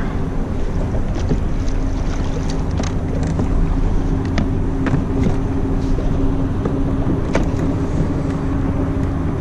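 Steady low rumble of wind and water around a kayak, with a faint, even engine drone underneath and a few small ticks and splashes.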